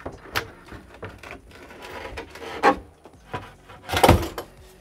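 Coosa composite board being pushed and knocked into place against a boat transom: irregular knocks and scraping, with the loudest knocks about two and a half and four seconds in.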